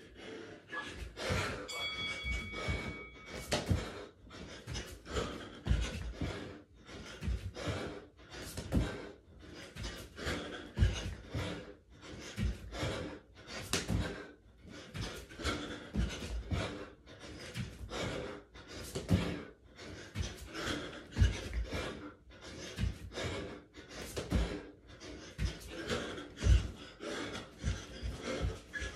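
A man panting hard between exertions, a heavy breath about once a second, with dull thumps of his feet landing on the floor during burpees and jogging on the spot.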